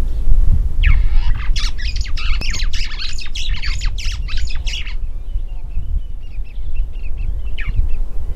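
Red-billed hornbill calling a rapid series of harsh, repeated notes, about four a second, which stops abruptly about five seconds in. Fainter chirps follow, over a steady low rumble.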